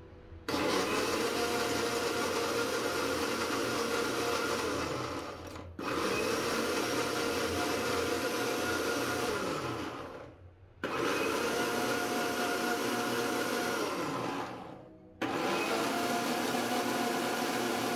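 Bajaj Ninja 500 W mixer grinder motor running in pulse mode, blending mango and milk into a shake in its steel jar. It runs in four bursts of four to five seconds, each starting abruptly and dying away briefly before the next.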